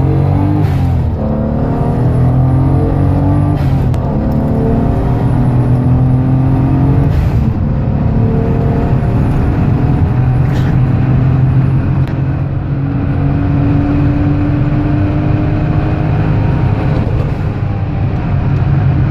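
Turbocharged 3.2-litre 24-valve straight-six in a Mercedes-Benz W201, running 0.6 bar of boost and heard from inside the cabin. It pulls hard through the gears, its note rising in each gear, with shifts about one, four and seven seconds in, then climbing more slowly in a higher gear. A brief sharp noise comes at each shift.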